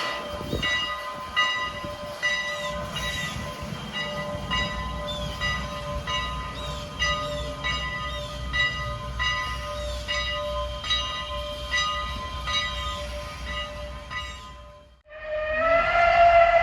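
Steam locomotive No. 89, a 2-6-0 mogul, working with a regular rhythmic beat. Near the end, after a brief drop-out, its PRR banshee whistle blows loudly, rising in pitch as it opens.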